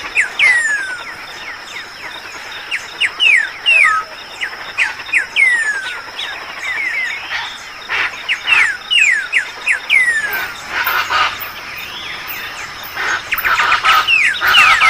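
Dawn chorus of many birds: short descending whistles repeated over and over from several singers, with small high chirps, over a steady high-pitched tone.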